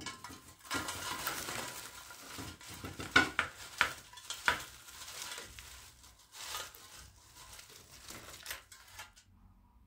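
Potato wedges tipped out of an air fryer basket, tumbling and knocking onto a wooden serving board in a quick run of clatters, loudest a few seconds in and stopping just before the end.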